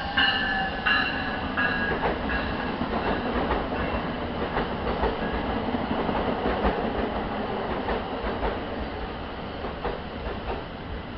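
NJ Transit double-deck passenger coaches rolling past as the train pulls into the station. A run of short high-pitched wheel squeals and clacks over the rail joints comes in the first three seconds, then a steady rolling rumble that slowly fades as the train slows.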